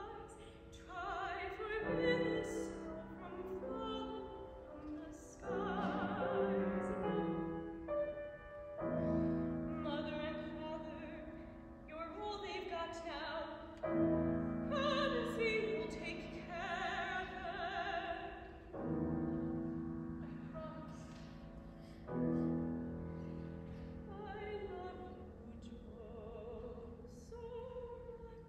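A woman singing an opera aria in full classical voice with vibrato, phrase by phrase with short breaks, accompanied by held chords on a grand piano.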